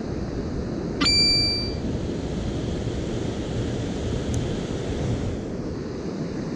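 Mountain stream water rushing steadily. About a second in comes a single sharp metallic ping that rings briefly with a bright, bell-like tone before fading.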